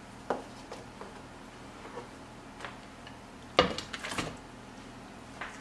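A few light clicks from a salt and pepper grinder being twisted over raw chicken strips. Then, about three and a half seconds in, a louder clatter of a plate knocking against a nonstick skillet as the chicken is tipped in.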